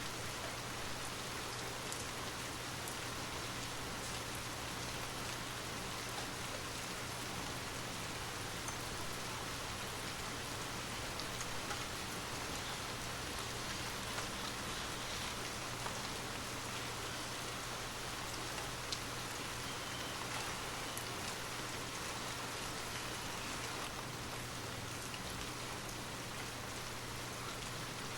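Steady rain falling, an even hiss with faint scattered drop ticks and a low steady hum underneath.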